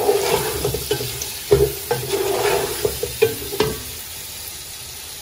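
Wooden spatula stirring chicken and spiced onion masala frying in oil in a non-stick pot: scraping strokes and sharp knocks of the spatula against the pot over the sizzle. The stirring stops about four seconds in, leaving only the steady frying sizzle.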